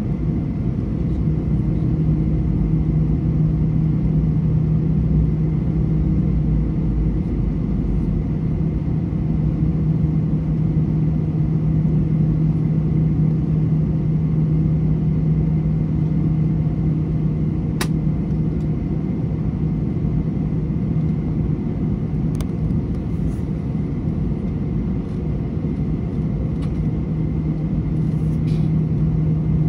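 Cabin noise of an Airbus A321 taxiing, heard from a window seat beside the wing: the jet engines at taxi idle give a steady low rumble with a constant hum. A few faint clicks sound in the second half.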